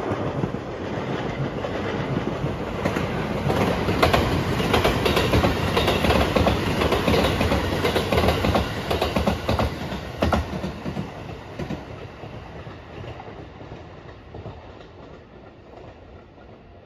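Rapid Marine Liner electric multiple-unit train passing close by, its wheels clattering over the rail joints. It swells in the first seconds, is loudest in the middle, then fades away.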